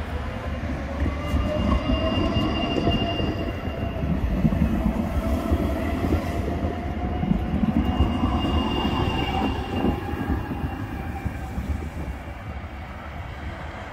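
Dresden low-floor articulated tram passing close by on newly laid track during a track-acceptance test run, its running gear rumbling under a gliding electric whine. A thin high wheel squeal sounds twice, and the noise fades as the tram moves away near the end.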